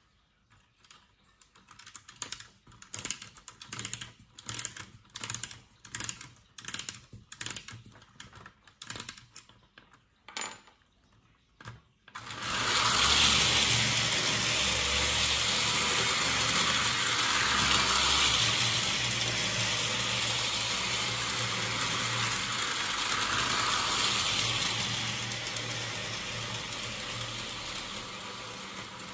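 Clockwork motor of a mid-1920s Bing OO-gauge 2-2-2 tank engine being wound with its key, the ratchet clicking about twice a second for some ten seconds. About twelve seconds in the engine is let go and runs along tin-plate track with a steady whirring clatter that slowly fades toward the end.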